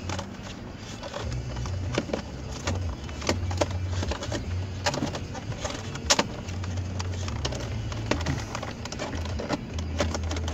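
Irregular plastic clicks and knocks as a Saab 9-3 driver door module (window switch unit) is handled and pushed into the door panel's armrest, working it onto its locking tabs.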